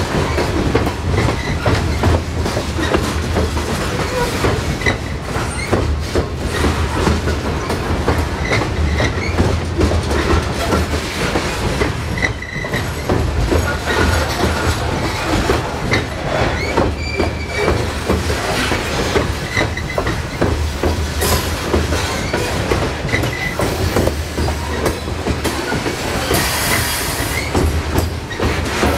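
Coal hopper cars rolling past at close range over an open-deck steel viaduct: wheels clacking over the joints of jointed rail, with a heavy rumble that swells and fades. Short high wheel squeals sound now and then.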